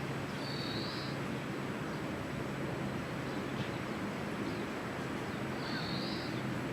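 Outdoor background noise with a steady low hum, broken twice by a short high-pitched bird call, one about half a second in and another near the end.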